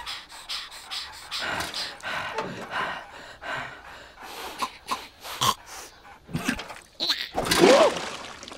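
Wordless cartoon voices of the larva characters: a string of short breathy vocal noises, then a louder wavering cry about seven seconds in.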